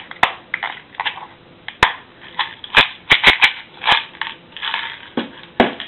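Sharp clicks and small rattles from a round compartment box of split-shot sinkers being turned and shaken to tip out a shot, with a quick run of clicks about three seconds in.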